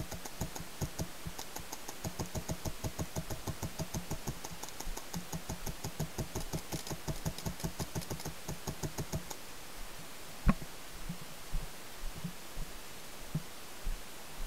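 Paintball marker firing a fast, steady string of shots, several a second, as suppressing fire. The firing stops about two-thirds of the way through, followed by one sharp knock and a few scattered thumps.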